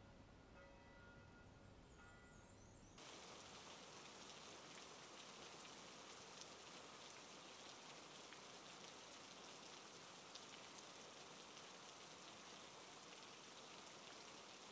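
Faint, steady rain hiss with scattered light ticks of drops, cutting in suddenly about three seconds in. Before that, only a few faint held tones.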